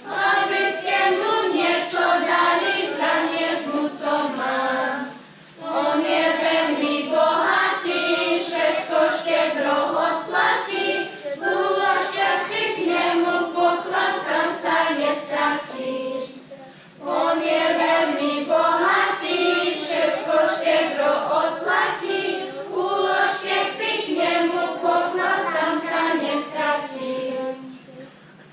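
Children's choir singing, with two short breaks between phrases, stopping just before the end.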